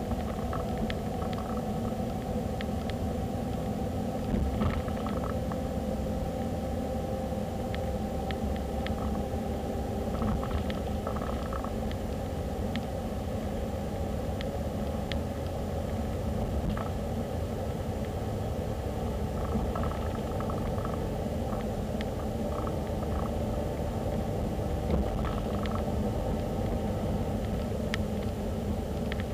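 Car driving along a road: a steady rumble of engine and tyre noise, with scattered faint ticks and rattles.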